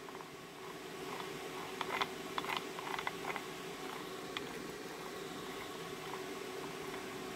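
1972 Bolens Husky 1256 snowblower gearbox, its bevel gears welded solid to the shafts, being turned over smoothly and quietly, with a few faint clicks of the gears about two to three seconds in. A steady hum runs underneath.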